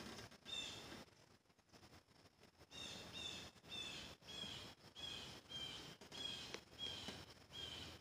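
A bird calling a series of about ten short, high, slightly falling notes, one near the start and then roughly two a second from about three seconds in. A short rush of noise sits at the very start.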